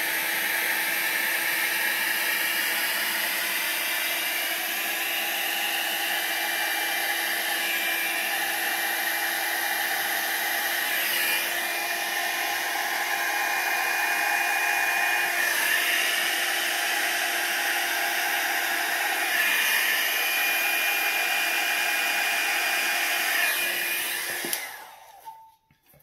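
Revlon hot air brush tool running on its cool setting (high airflow, low heat): a steady blowing hum with a high whine. Its pitch dips briefly about three times, and it cuts off about a second before the end.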